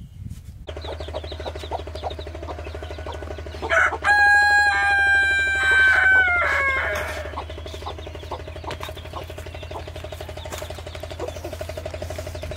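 A rooster crows once, a long held call that slides down at the end. Under it runs a steady background of music with a low hum and a quick pulsing beat.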